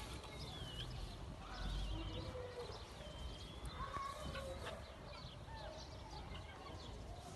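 Farmyard birds chirping, with many thin whistling calls that glide up and down, over a low rumble that swells briefly about two seconds in.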